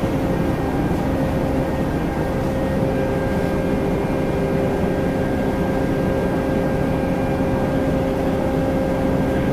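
Steady drone of a ship's running machinery, with a constant hum tone over a low rumble.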